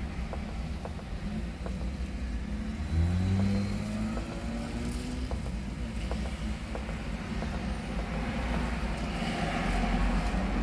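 A motor vehicle's engine over a steady low hum, its pitch rising about three seconds in as it revs up, with a noisier swell like a vehicle passing near the end.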